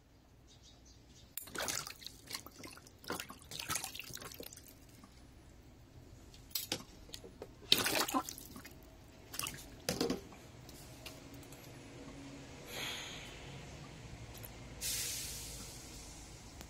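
Shallow water splashing and sloshing in a plastic tub as an African bullfrog lunges at and grapples with a white mouse: a run of sudden splashes and knocks over the first ten seconds, the loudest about eight seconds in, then a couple of softer wet swishes.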